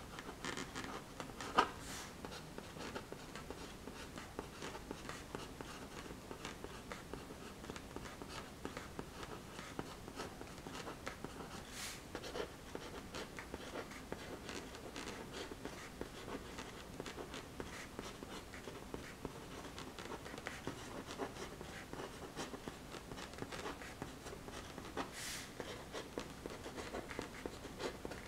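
Writing on paper: faint, continuous scratching with many small ticks, and a few sharper clicks now and then.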